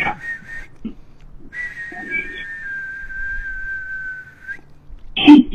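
A person whistling: short whistled notes, then one long steady note held for about three seconds, sinking slightly in pitch before it stops. A brief loud burst of sound comes near the end.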